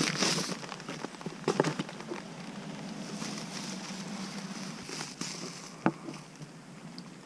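Handling noise: a few light clicks and knocks over a faint steady hiss, with one sharper click near the end.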